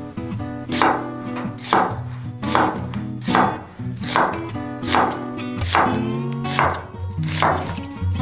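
Chef's knife slicing through an onion onto a wooden end-grain cutting board: sharp, evenly spaced cuts a little faster than one a second, about nine in all, over soft background music.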